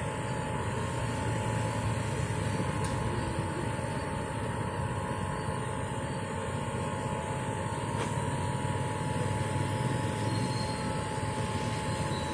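Steady outdoor background noise: an even low rumble with a faint steady high hum over it, unchanging throughout.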